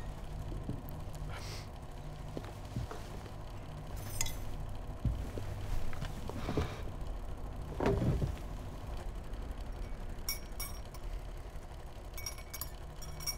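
Dishes, glass and cutlery being set down on a dinner table: scattered light clinks and knocks, the loudest about eight seconds in and a quick run of small clinks near the end, over a steady low hum.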